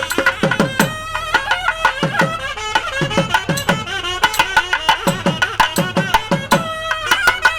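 Traditional Indian music: a reed wind instrument plays a melody over a steady hand-drum beat, the drum's bass strokes bending down in pitch.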